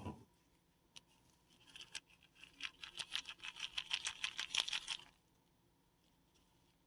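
Paradichlorobenzene mothball being crushed between the fingers: a single click about a second in, then a rapid run of fine crackling and crunching for about three seconds, loudest near its end, that stops abruptly.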